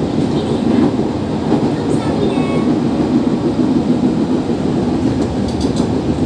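Steady running rumble of a JR 205 series electric commuter train moving along the track, heard from inside the passenger car.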